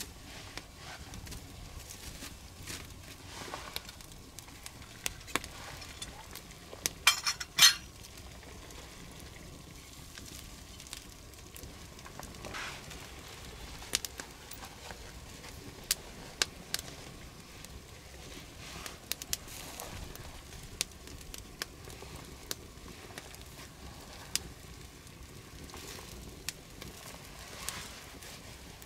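Wood campfire crackling steadily with scattered sharp pops. Two or three louder sharp knocks or clinks come close together about seven seconds in.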